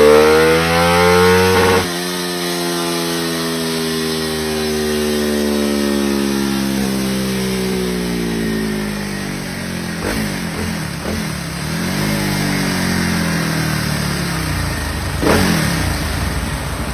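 Honda Monkey 125 engine with a Kitaco racing DOHC cylinder head revving. The pitch climbs for the first couple of seconds, then drops sharply as the throttle closes. It sinks slowly over the next several seconds, then comes a series of short throttle blips near the end.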